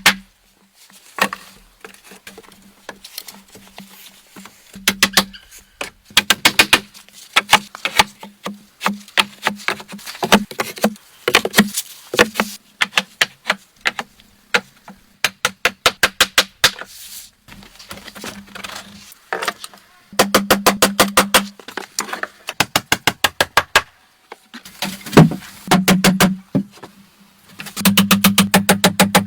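Power tool working in repeated bursts of a second or two, each a rapid run of knocks over a low hum.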